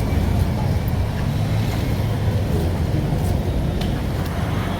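Road traffic: a steady low rumble of vehicle engines and tyres.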